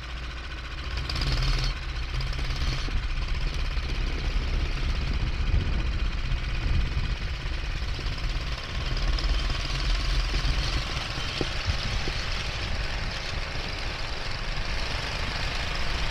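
Small motorcycle engine running steadily, with its new heavier chain fitted, the level rising a little about a second in.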